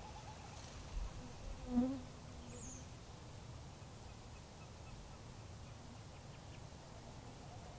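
A flying insect buzzes briefly past the microphone about two seconds in, over a faint steady outdoor background.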